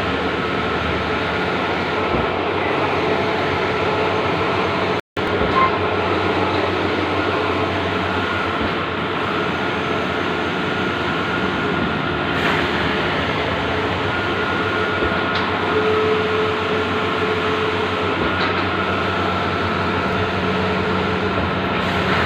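Bluewin large-format outdoor digital printing machine running, a steady mechanical hum and whirr with a few steady tones, briefly cutting out about five seconds in.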